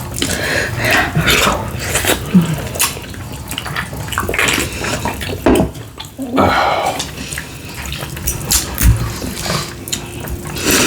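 Close-miked eating sounds: wet chewing, smacking and slurping, with irregular clicks.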